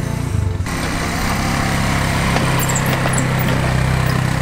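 Kawasaki Prairie quad's engine running steadily as it tows a heavily loaded firewood trailer, with the sound shifting abruptly about half a second in.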